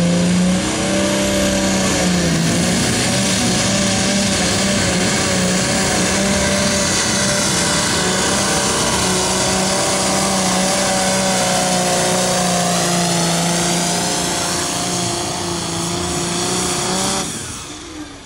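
A diesel pulling tractor running at full throttle, hauling a weight-transfer sled down the track, its engine note holding steady under load. About a second before the end the engine is let off and the sound drops away suddenly.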